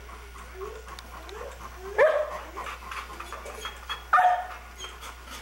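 A dog whining in a series of short rising whimpers, with two louder, sudden barks about two seconds apart.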